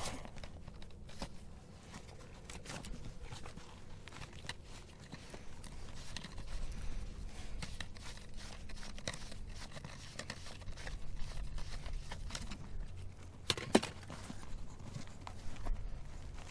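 Rustling, crinkling and scattered clicks of portable radio gear being handled and packed away, with one sharper click late on.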